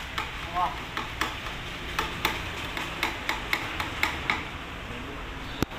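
A series of sharp, irregularly spaced clicks and taps, about a dozen in four seconds, then a single louder click near the end, from hand work on the bus.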